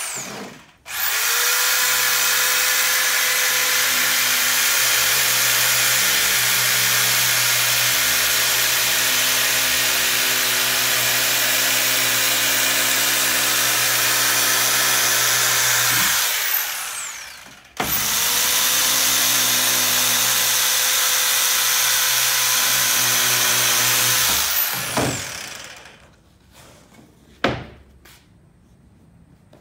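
Corded handheld power tool shaping a block of seat foam: it runs steadily at one speed for about fifteen seconds and winds down, then starts again, runs about six seconds more and winds down. A single knock comes near the end.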